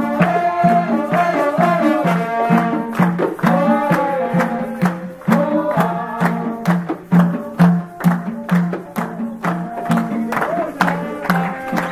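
Live plena: panderos (Puerto Rican hand frame drums) keep a steady beat of about two strokes a second under a trumpet and other brass playing the melody.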